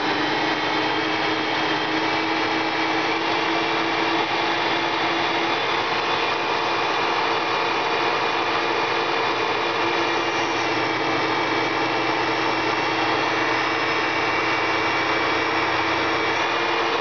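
Alternator bench tester's drive motor spinning a 200-amp-rated CS130 alternator at about 700 RPM: a loud, steady machine noise with several steady whining tones, as the alternator is put under electrical load.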